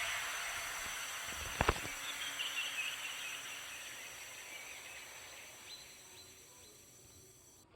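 Faint background hiss, possibly outdoor ambience, fading out slowly to near silence, with a short click about one and a half seconds in.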